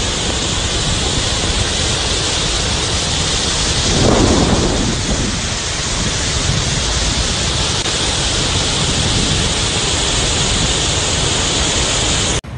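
Floodwater pouring over a spillway: a loud, steady rush of water, with a brief heavier rumble about four seconds in. The sound cuts off suddenly just before the end.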